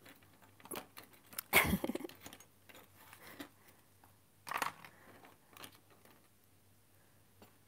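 Plastic marker pens clicking and knocking together as they are picked through on a cluttered desk, in a few separate handfuls, the loudest about a second and a half in.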